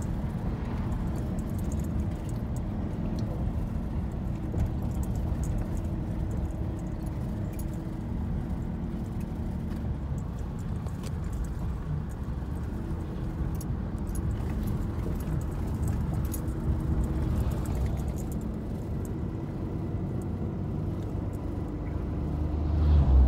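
Road noise inside a moving car's cabin: a steady low rumble of tyres and engine, with a few light rattles, swelling near the end as an oncoming truck passes.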